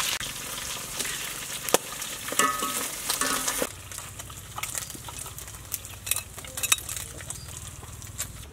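Eel pieces sizzling in hot frying oil as they are scooped out, with sharp clicks and metal scrapes. About three and a half seconds in the sizzle drops away, leaving scattered clicks as the fried pieces settle in a perforated metal strainer.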